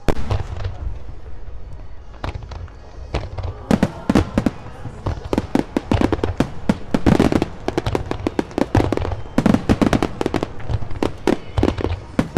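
Fireworks going off: deep booms at first, then from about four seconds in a rapid, dense run of sharp bangs and crackles.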